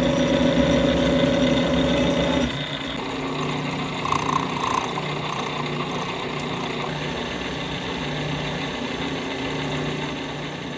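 Brown & Sharpe No. 2 horizontal milling machine running, its 1-inch cutter on the horizontal arbor turning slowly (75 RPM) and taking a shallow cleanup cut across steel bar stock under power table feed. A louder, steady tonal machine hum in the first two and a half seconds changes abruptly to a quieter steady hum of the cut.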